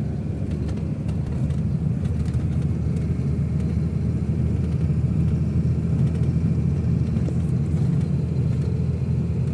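Steady low engine and road rumble of a moving vehicle heard from inside the cab, growing slightly louder after about a second and a half.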